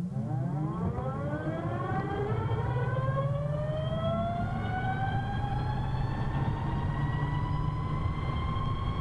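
Vectrix VX-1 electric maxi-scooter whining as it accelerates from a stop. The whine climbs steeply in pitch over the first couple of seconds, then keeps rising slowly, over a steady low rumble. The owner puts the whine down to its straight-cut reduction gear.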